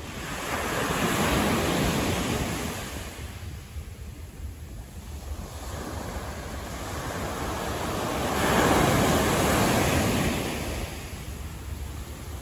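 Street traffic on a city road: two vehicles pass, each a swell of rushing tyre and road noise that rises and fades over a few seconds, the second about eight seconds after the first, over a steady low rumble.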